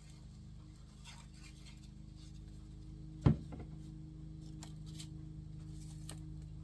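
Faint rustling and small clicks of paper craft pieces being handled, over a steady low hum, with one sharp knock on the work surface about three seconds in.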